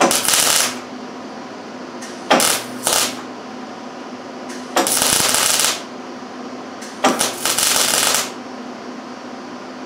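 Stitch welding on steel plate: short bursts of welding-arc crackle, started and stopped again and again to fill a wide gap, the longest about a second. A steady low hum runs beneath.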